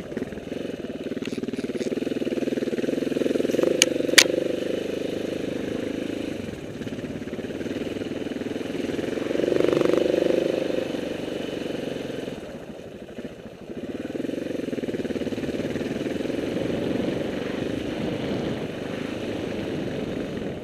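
KTM 690 Enduro R's single-cylinder four-stroke engine running on a trail ride, the revs swelling and easing off, with a dip about two-thirds of the way through. Two sharp clicks sound about four seconds in.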